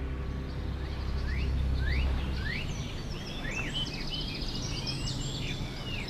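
Small birds chirping over a steady outdoor hiss: many quick, high, rising chirps, with a brief rapid trill about halfway through.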